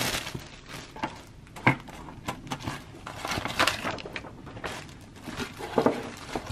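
Plastic wrapping crinkling and rustling as it is handled, with scattered clicks and taps from a wire mesh tray and cardboard being moved and lifted.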